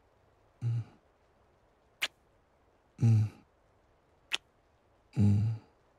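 Close-microphone kisses from a man: two sharp lip smacks alternating with three short, low, breathy hums, each hum falling slightly in pitch.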